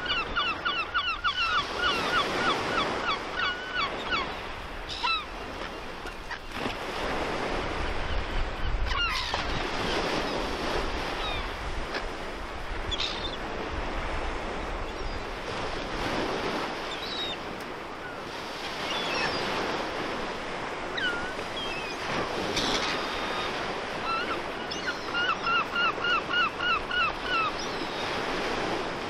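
Gulls calling: a fast run of repeated calls, about five a second, at the start and again near the end, with scattered single cries between. Underneath is a steady rush of surf.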